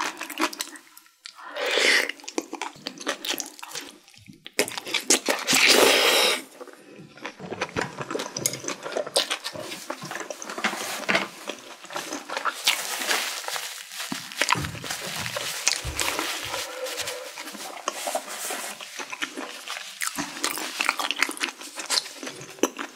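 Close-miked eating of saucy mala xiang guo: two loud slurps, about two seconds in and again about six seconds in, then steady wet chewing and lip-smacking.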